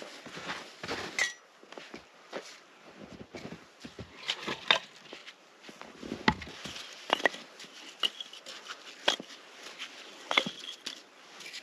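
Irregular clicks and knocks, several a second at times, a few of them near the end with a short ringing, metallic-sounding tone.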